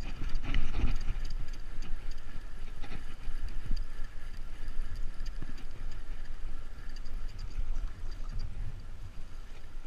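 Spinning fishing reel being cranked to bring in a hooked fish, a steady whir with faint fast clicks, after a couple of handling knocks near the start as the rod is swung to set the hook. Low wind rumble on the microphone underneath.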